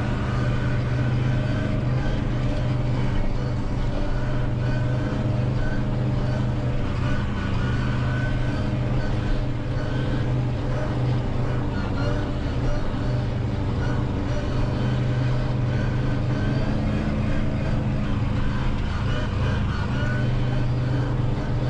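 Valtra N 121 tractor's diesel engine running steadily at working revs under the load of the Claas Corto 290 FN front mower, heard from inside the cab.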